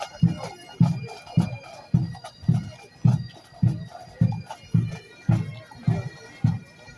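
Scottish bagpipes playing a march over a steady bass drum beat, a little under two beats a second.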